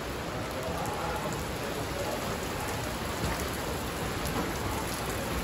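Rain falling steadily: a loud, even hiss flecked with the ticks of single drops.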